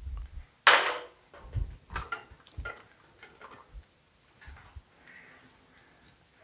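Thin sheet-metal fender panel handled at an English wheel: one loud, short clatter of the sheet flexing about a second in, then a few soft knocks as it is set between the wheels, and fainter handling noise after.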